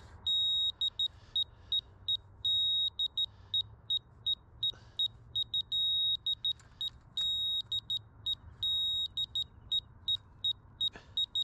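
Laser level receiver beeping in one high electronic tone, in irregular short beeps broken by longer held tones, as it hunts for the rotating laser's beam to find grade.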